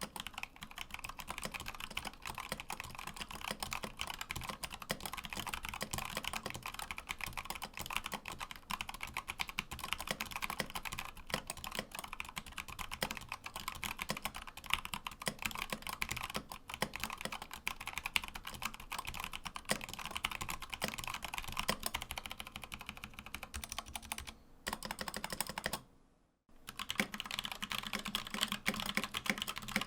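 Fast continuous typing on a mechanical keyboard, a dense run of key clicks and clacks; it breaks off briefly about 26 seconds in and then starts again.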